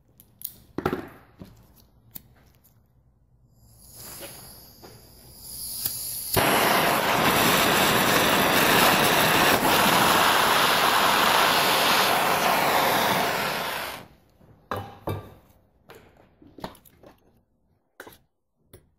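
Gas blowtorch: a hiss of gas that builds for about two seconds, a sharp pop as it lights, then a steady loud flame noise for about eight seconds that cuts off suddenly when the torch is shut off. A few light metal clicks and knocks of tools being handled come before and after.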